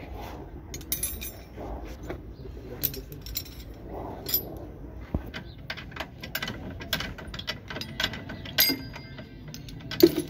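Steel hand tools, spanners and wrenches, clinking against each other and against metal in irregular sharp clicks, with a couple of louder knocks near the end.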